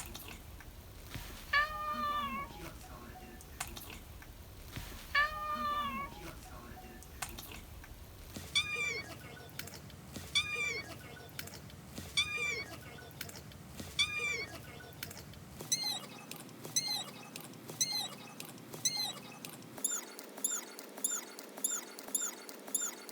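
A cat's short meow repeated over and over as an edited loop, each round faster and higher-pitched. At first it comes about once every two seconds. From about eight seconds in it comes roughly once a second, from about sixteen seconds twice a second, and near the end about three times a second, by then a thin, high squeak.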